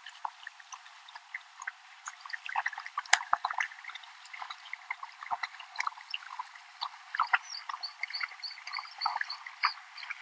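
A waterbuck wading through shallow river water, its legs splashing and sloshing in a run of irregular small splashes. About three-quarters of the way through, a rapid, evenly repeated high chirping starts up and carries on.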